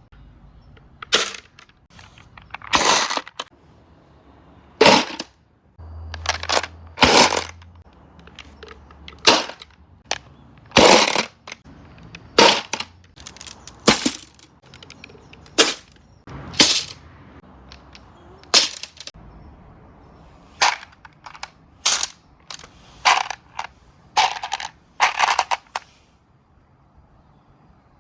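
Marbles clacking against a marble run's track: a string of sharp, irregularly spaced clacks, some ringing briefly.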